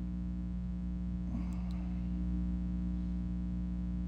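Steady electrical mains hum with several overtones, with a faint brief noise about a second and a half in.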